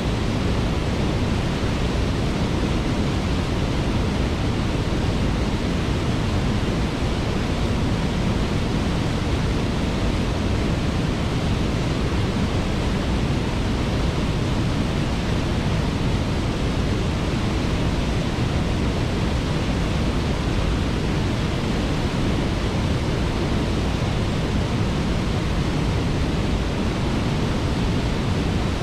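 Waterfall: falling water rushing in a steady, unbroken noise.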